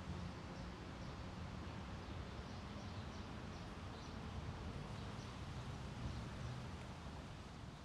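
City ambience: a steady low rumble of distant traffic under wind rustling tree leaves, with small birds chirping repeatedly in short high notes.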